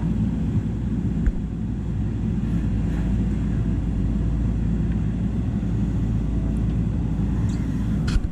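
JCB backhoe's diesel engine running steadily under load, a dense low rumble, with one sharp knock just over a second in.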